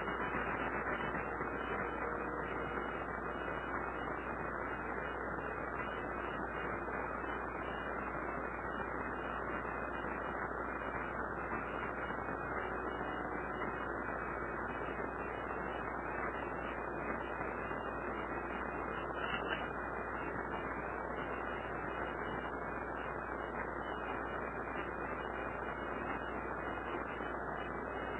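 Steady background hiss and hum, unchanging throughout, with a single faint click about two-thirds of the way through.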